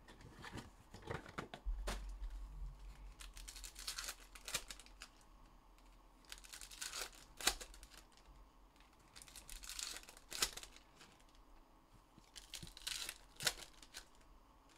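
Plastic wrapping of trading card packs and their box being torn open and crinkled, in several short rustling spells with quiet gaps between.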